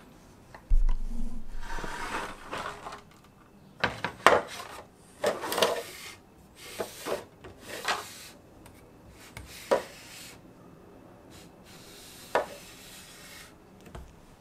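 Handling noise from a 3D printer's print bed, with printed PLA parts on it, being moved about on a wooden table: irregular scraping and rubbing with a few sharp knocks and clicks, the sharpest about four, ten and twelve seconds in.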